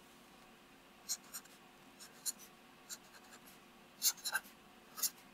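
Sharpie marker writing on paper: a string of short, faint strokes with brief quiet gaps between them.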